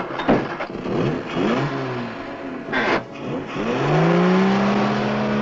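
Car engine accelerating, its pitch rising and falling several times as it revs, after a sharp knock at the start.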